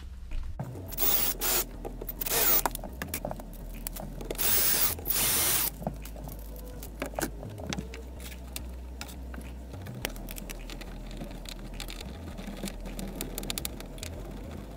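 DeWalt cordless drill boring a pilot hole, run in about three short bursts, the last one the longest. Smaller clicks and rattles of parts being handled follow.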